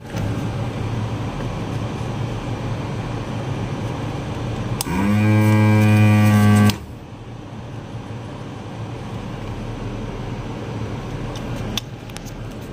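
A desoldering gun's vacuum pump buzzes steadily for about two seconds, starting about five seconds in and cutting off sharply, as solder is sucked off the pins of a capacitor being removed from the board. A low steady hum runs under it.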